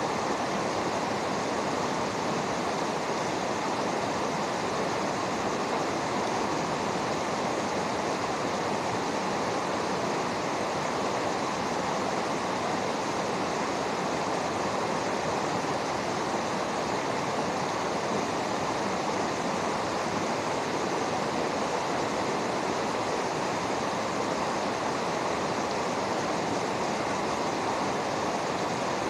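Fast-flowing river water rushing over rocks, a steady, unbroken rush.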